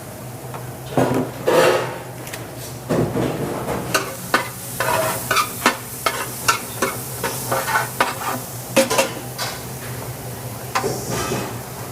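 A utensil stirring, scraping and knocking in a hot pan in quick irregular strokes while food sizzles.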